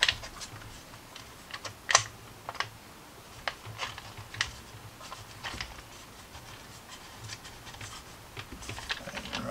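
Irregular sharp plastic clicks and taps from a monitor being handled while a dash-mount bracket is slipped into its back.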